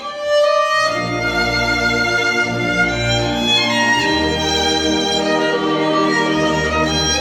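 Solo violin playing a melody over orchestral accompaniment of strings and low bass. The music swells back in just after a brief dip, and deep bass notes enter about a second in.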